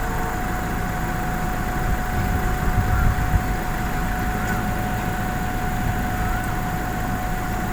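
Vehicle engine running steadily: a low rumble with a steady whine over it.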